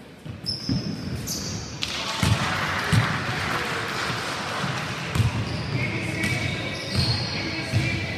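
Basketball bouncing on a wooden gym floor as players dribble up the court, a thud every half second to a second, with sneakers squeaking now and then and voices echoing in the hall.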